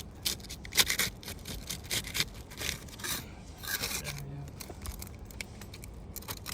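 Sealed asphalt roof shingles being pried apart: a tool scraping under the tabs and the sealant strip crackling as it breaks loose, busiest in the first couple of seconds.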